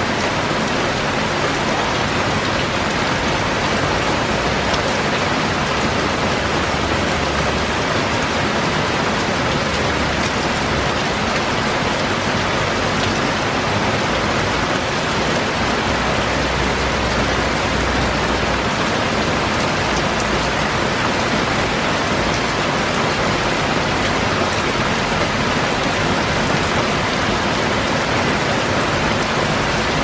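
Heavy rain falling steadily on the leaves of trees and shrubs, a dense, even hiss of rain that does not let up.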